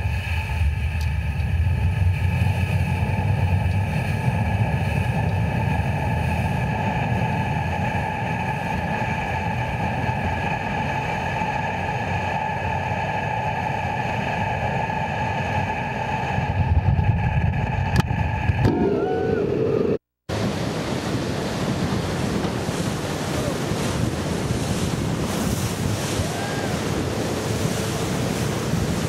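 Motorboat running at speed, its motor a steady whine over rushing water and wind on the microphone. After an abrupt cut about twenty seconds in, only the rush of water and wind remains.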